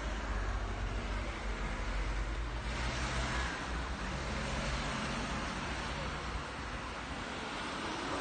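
Passing street traffic: a steady hiss of cars going by, with an engine hum over the first few seconds.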